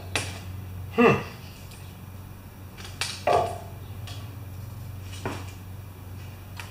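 A few metal clinks and knocks from hand tools and parts being handled during work on a generator's throttle linkage, the loudest about a second in, over a low steady hum.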